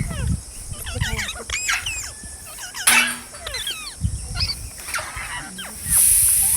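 Pet green parrots calling with many short squawks and chirps that swoop up and down in pitch, with one loud squawk about three seconds in. A steady high hiss comes in near the end.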